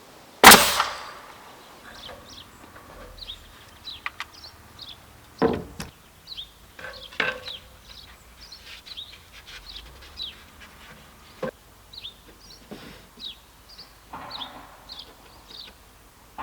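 Pneumatic nail gun firing into wall boards: one loud shot about half a second in, then a few fainter shots several seconds apart. Small birds chirp throughout.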